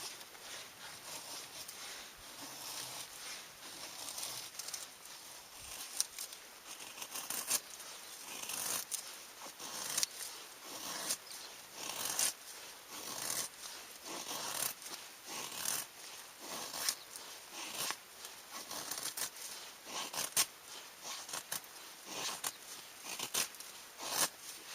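Irregular rustling and sharp clicks of things being handled, the strokes coming thicker after about six seconds.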